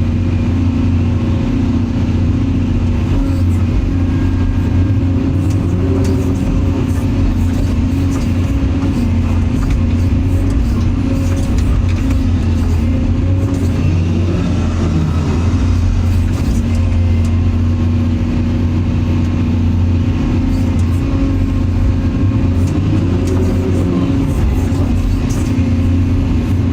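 Excavator's diesel engine running steadily under load while digging, with a hydraulic whine that rises and falls a few times as the boom and bucket are worked.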